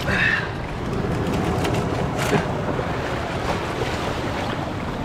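Sea surge washing and swirling through a narrow rocky channel lined with mussels, a steady rush of water, with wind buffeting the microphone.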